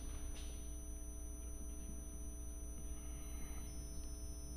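Steady low electrical hum. About three seconds in, a faint soft scratch of a marker writing on a whiteboard.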